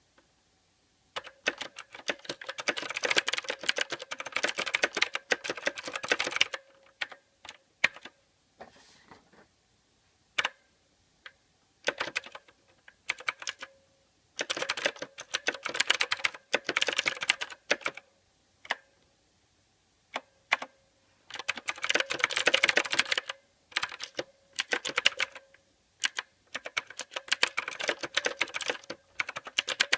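Mechanical keyboard typing: rapid runs of key clicks in bursts of a few seconds, broken by short pauses and a few single key presses.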